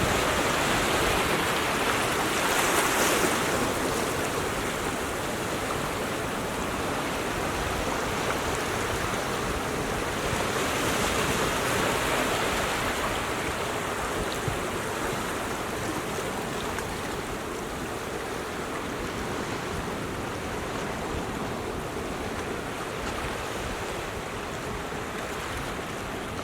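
Ocean surf washing against a rocky shore: a continuous rush of water that swells louder about three seconds in and again around eleven seconds, then settles to a steadier wash.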